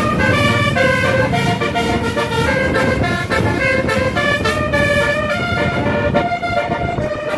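Bus telolet horn (Basuri multi-tone air horn) playing a quick tune of short stepped notes, with the low rumble of bus engines underneath.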